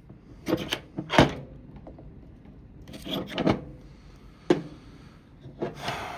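Small metal rifle parts being handled and fitted by hand: a few separate clicks and short scraping rattles, with the loudest clicks about a second in and at about four and a half seconds.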